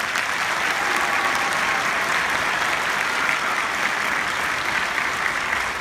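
Audience applauding: a dense, steady round of clapping that breaks out at once and holds.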